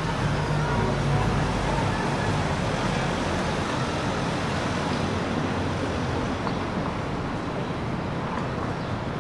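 City street traffic: road vehicles passing, with a low engine rumble in about the first two seconds.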